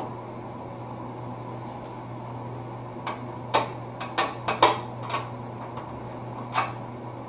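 Small hand tools clinking on metal hardware while the bracket bolts are done up by hand: a scattered run of short, light metallic clicks and taps, about eight of them, starting about three seconds in, over a steady low hum.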